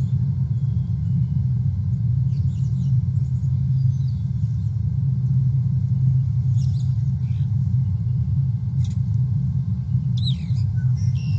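Steady low rumble, with a few faint, short high chirps over it.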